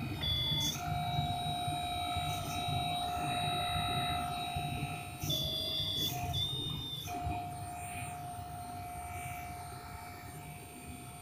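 Small electric motor driving a miniature hydraulic pump in an RC excavator, a steady whine over a low hum. The pitch shifts and briefly breaks several times, and the sound fades a little toward the end.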